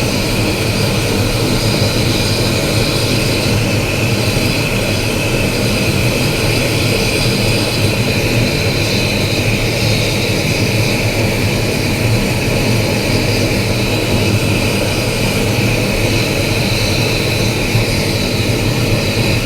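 Steady, loud roar of a wood-charcoal retort kiln's firebox burning hard, with the kiln's wood gas circulated back into the fire.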